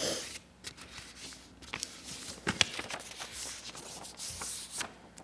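A sheet of paper being folded and creased by hand: soft rustles broken by a few crisp clicks at uneven moments, the sharpest a little past halfway.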